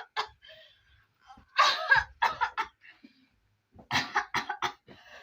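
A woman coughing in two short fits of several harsh coughs each, the first about a second and a half in and the second near four seconds in. The coughing is put on, part of a staged act of coughing up blood.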